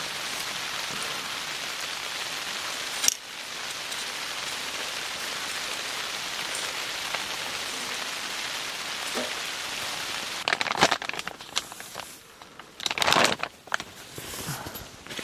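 Steady heavy rain mixed with sleet falling on a tent. After about ten seconds the rain drops back and a few scattered clicks and a short rustling burst are heard.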